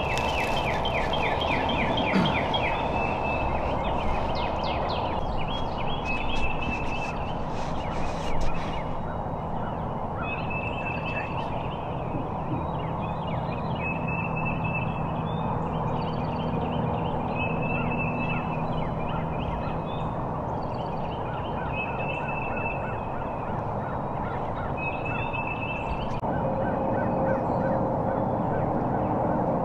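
Wild turkeys gobbling and calling, a call every few seconds over a steady background hiss. The gobbles come as fast runs of falling notes, mostly in the first few seconds.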